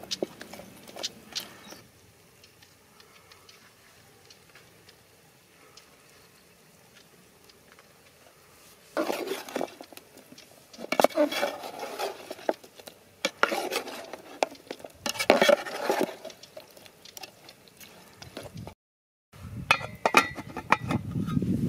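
A metal ladle scraping and clinking against a metal cooking pot as chicken curry is stirred, in several bursts of a second or so with pauses between. Near the end a metal lid clatters onto the pot.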